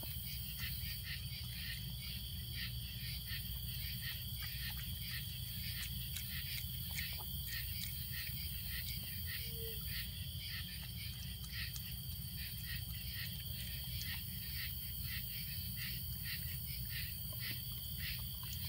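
Night insects chirping: a steady high trill made of rapid, evenly repeated pulses, over a low steady rumble.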